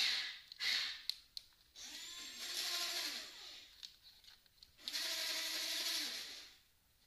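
Small electric gear motors of a Jamara 517J RC excavator whining in stop-start bursts as the toy is driven: a few short blips early on, then two longer runs, the pitch shifting as each motor speeds up and slows down.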